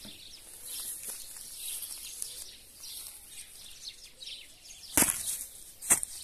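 Birds chirping, then near the end two sharp impacts about a second apart as a homemade hammer of bundled rebar, swung on a chain, smashes into a watermelon.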